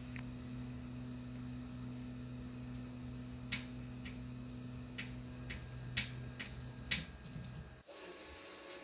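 Stepper motors of a large home-built 3D printer driving its gantry slowly during a homing move: a steady low hum, with a scattered run of sharp ticks from about three and a half seconds in. Near the end a short rising tone sounds, then the hum cuts off and a different, higher steady whir takes over.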